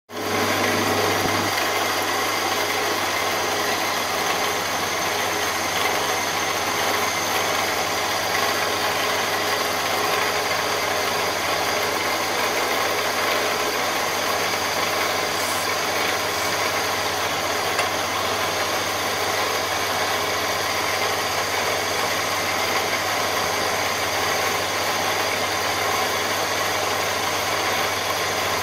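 Milling machine running with its end mill cutting an aluminium block, a steady mechanical whir with several held tones throughout.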